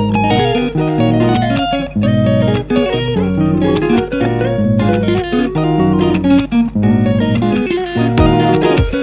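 Background music led by guitar, plucked notes over a bass line, with drum hits joining about three quarters of the way through.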